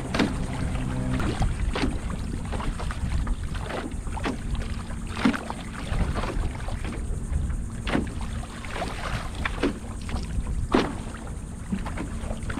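Wind buffeting the microphone over water sloshing around a kayak, with short sharp sounds every second or so at irregular intervals.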